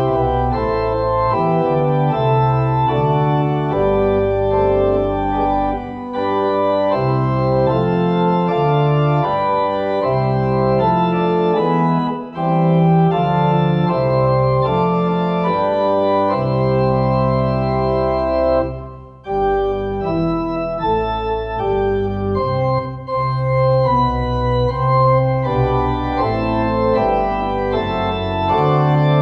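Organ music in slow, sustained chords, with a brief break about two-thirds of the way through.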